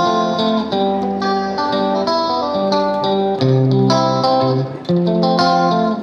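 Background music led by plucked guitar, a steady run of picked notes over low sustained chords.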